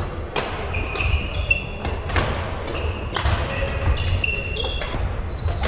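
Badminton rackets striking a shuttlecock in a quick rally, with sharp irregular hits, and short high squeaks of shoes on the court floor between them.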